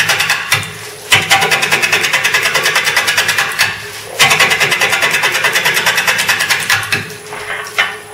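A 1/2 inch bowl gouge cutting an out-of-balance ash bowl blank spinning on a wood lathe at about 295 RPM: a loud, rapid chatter of about five knocks a second. This is an interrupted cut on the uneven, bark-covered blank during roughing. The cut comes in three passes, with short pauses as the tool is drawn back.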